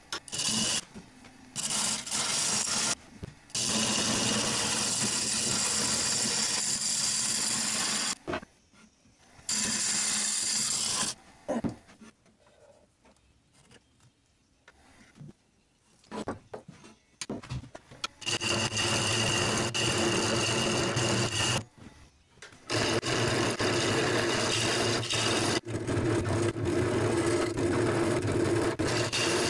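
Turning tools cutting catalpa wood spinning on a wood lathe: a loud, steady scraping cut in several long passes of a few seconds each, broken by quiet gaps with a few light clicks.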